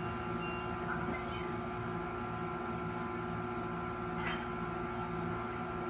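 Steady electrical or mechanical room hum, with a low tone that pulses on and off in a regular rhythm.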